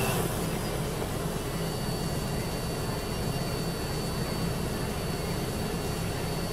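Xiaomi Mi Drone 4K quadcopter's motors spinning its propellers at idle while it sits on the ground, armed for takeoff: a steady hum, with a thin high whine joining about one and a half seconds in.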